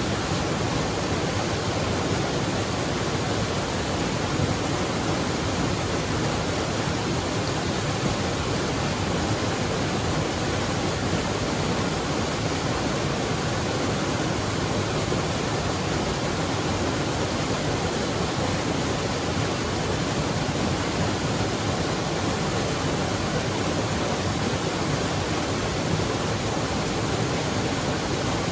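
Mountain waterfall: water pouring and splashing in a continuous, even rush.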